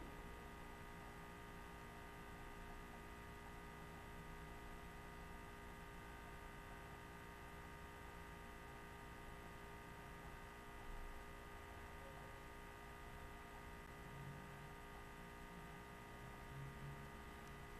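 Near silence: room tone with a faint steady electrical hum.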